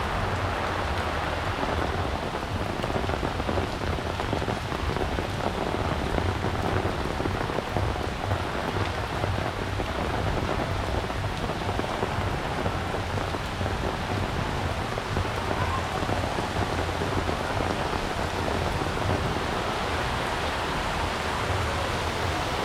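Heavy rain pouring steadily, hitting the ground and surfaces in an even hiss.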